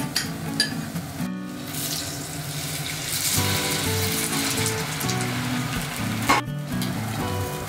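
Hot oil bubbling and sizzling steadily in a frying pan as hanpen and nagaimo fritters with red pickled ginger deep-fry, under light background music.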